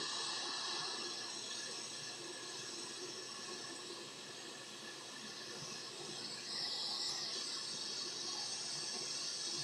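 Hot air rework station blowing with no nozzle fitted: a steady airflow hiss that grows a little brighter about two-thirds of the way through. It is heating a laptop GPU from the back of the motherboard at around 480 degrees.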